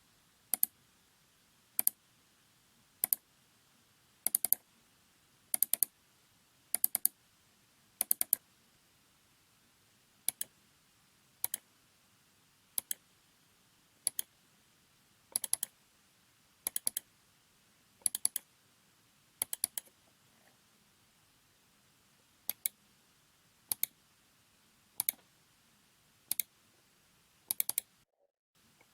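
ELECOM M-CAD01DB three-button mouse's buttons clicking, one click about every second and a quarter. Each click is a quick pair of sharp ticks.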